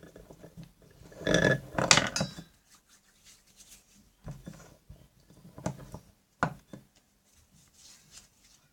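Clinking and knocking of dishes or cups being handled on a tabletop, loudest in a cluster about a second and a half in, followed by a few separate sharp taps.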